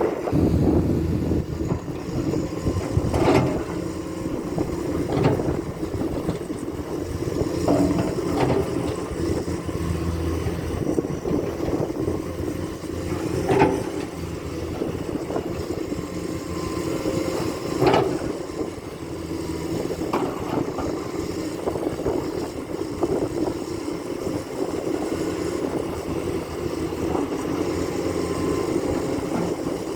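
Komatsu hydraulic excavator working: its diesel engine runs steadily, with a sharp clank every few seconds.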